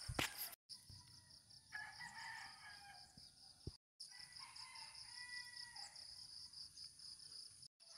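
Two faint rooster crows in the distance, over a steady pulsing chorus of crickets.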